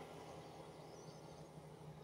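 Faint, steady low hum of a motor vehicle engine, with scattered faint high chirps.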